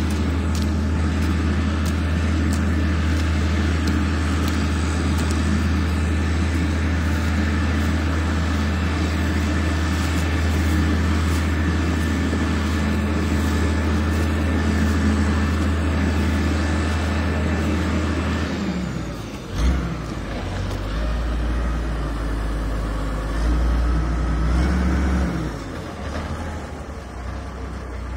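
Heavy engine of road-repair machinery running steadily with a deep hum. About two-thirds of the way through its sound drops briefly, then it runs on more unevenly.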